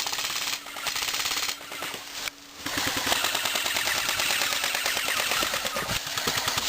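Airsoft guns firing rapid strings of shots, a fast, even run of pops that breaks off briefly about two and a half seconds in and then carries on.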